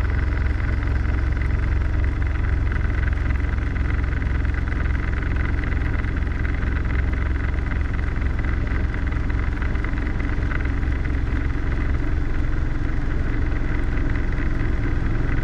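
Robinson R22 helicopter's engine and rotors running steadily in a low hover, heard from inside the cabin: a deep, rapidly pulsing drone with a thin steady whine above it.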